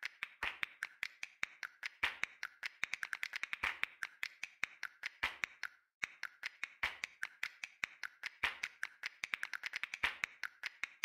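Rapid, light clicking, roughly seven or eight clicks a second in uneven clusters, with a short break about six seconds in.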